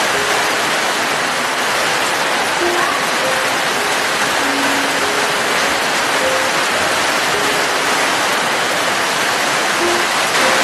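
Steady, dense rainfall hiss, with a few faint short notes at different pitches sounding softly underneath.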